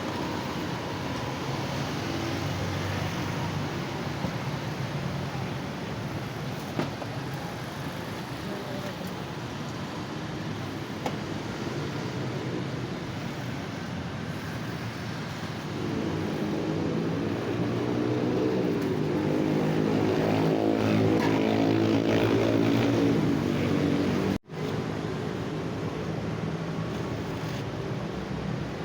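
Road traffic running steadily past a roadside stall. About sixteen seconds in, a nearby vehicle engine grows louder for several seconds, and the sound drops out briefly near the end.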